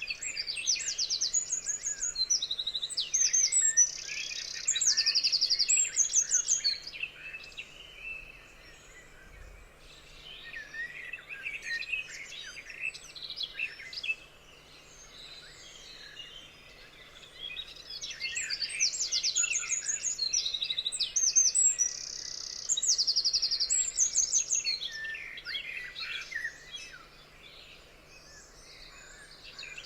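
Songbirds singing and chirping in a forest chorus, with rapid high trills. The song comes in two busy stretches with sparser calls between.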